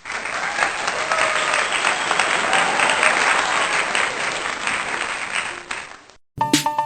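Applause from a crowd, a dense crackle of many hands clapping, fading out about six seconds in.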